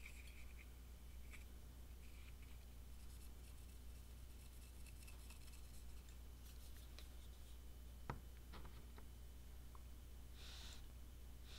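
Near silence: faint scratching of a plastic glue bottle's nozzle brushed over a piece of silicone rubber, with a soft click about eight seconds in, over a low steady hum.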